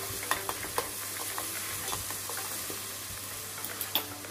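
Green chilli, ginger and garlic paste frying in hot oil in a kadai: a steady sizzle with scattered crackles and clicks as a spatula stirs it around the pan.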